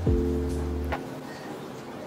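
Background music: a plucked-string chord over a bass note, struck with a drum hit at the start, and the bass drops out about halfway.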